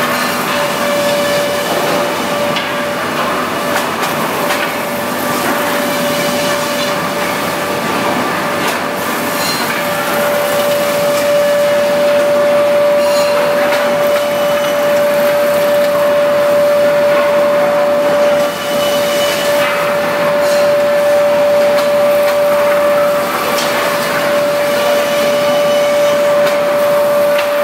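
REX wood planer running: dense machine noise with a steady high whine. The whine grows stronger about a third of the way in and dips briefly a little past the middle.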